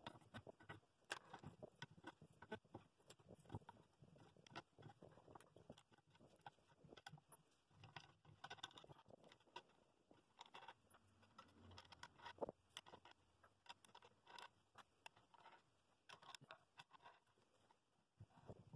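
Faint, scattered clicks and clinks of steel wing nuts and washers being threaded down the rods of a wooden glue-up press, with light knocks of wooden spacer blocks, as the glued bowl rings are clamped.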